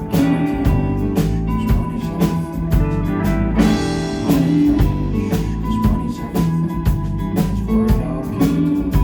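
Indie rock band playing live: electric guitar over drums with a steady beat, an instrumental passage without vocals.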